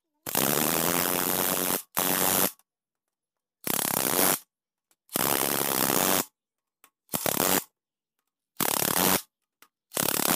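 Power wrench spinning a socket on the bolts of a Mitsubishi 4D56 diesel cylinder head, run in seven short bursts with pauses between them.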